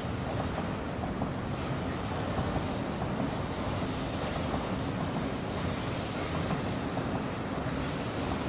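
ICE 4 high-speed train rolling slowly through curved track and points, its wheels squealing high and steady against the rails over a low rumble of wheels on track.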